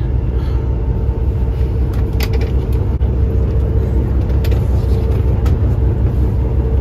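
Steady low rumble of a moving coach bus heard from inside the cabin, with a faint steady hum and a few light clicks.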